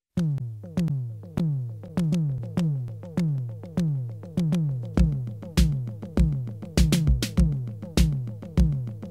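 Electronic intro music: a repeating synthesizer figure of short notes that each slide down in pitch, with a deep kick drum joining about five seconds in.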